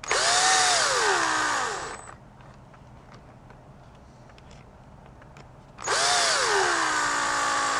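Small electric screwdriver driving the pager's hex-head screws, in two runs of about two seconds each. In each run the motor's pitch jumps up and then sinks steadily as the screw tightens until snug.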